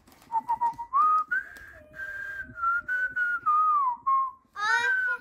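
A man whistling a tune, a few held notes with slides between them. A voice starts near the end.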